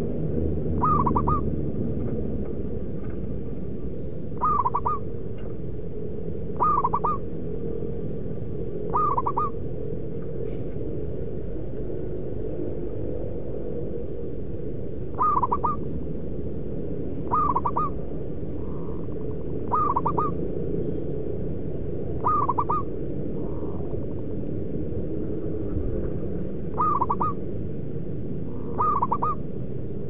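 Zebra dove cooing: short rolling calls, one about every two seconds with a longer pause midway, about ten in all, over a steady low rumble.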